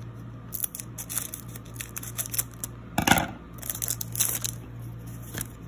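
Foil wrapper of a Pokémon trading-card booster pack being torn open by hand: crinkling and crackling, with one louder rip about three seconds in.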